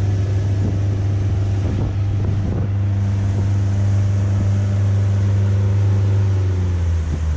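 A 50-horsepower outboard motor running steadily with the boat under way at speed: a loud, even low drone.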